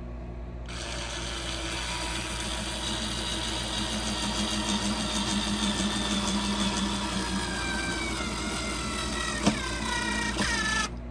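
Power drill running into a wooden board for about ten seconds; its whine drops in pitch near the end as it bears down, with a click just before it stops.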